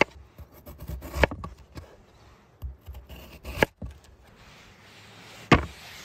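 Chef's knife slicing through a raw peeled potato and knocking on a wooden cutting board: a few sharp knocks a second or two apart, with softer cutting clicks between.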